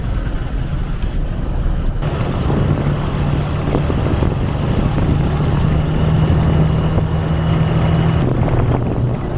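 Small motorcycle engine running steadily while riding, with road and wind noise on the chest-mounted camera's microphone; the engine note falls a little in pitch near the end.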